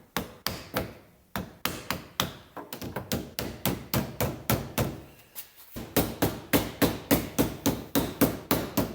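A rapid series of sharp taps or knocks, about three to four a second. They are uneven at first and become louder and more regular about two-thirds of the way through.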